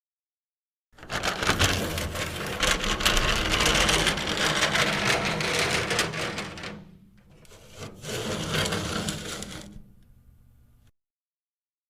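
A box being dragged across a floor, scraping: one long scrape of about six seconds, then after a brief pause a second, shorter scrape that fades away.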